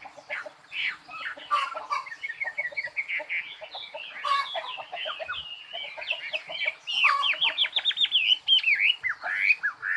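Birds chirping and singing: a busy run of quick whistled notes, chirps and trills, growing denser and louder about seven seconds in.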